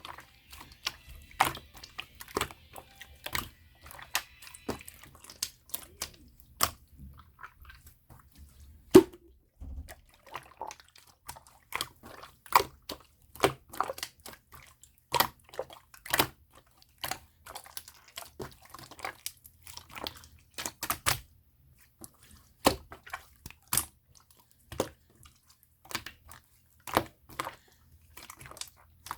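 Opaque slime being squeezed and pressed by hand, giving a steady run of irregular sticky clicks and small wet pops.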